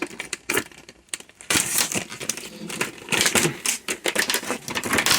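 Packaging of a new ratchet spanner set being handled and worked open: a quick, irregular run of clicks, taps and crinkling plastic and cardboard, busiest from about one and a half seconds in.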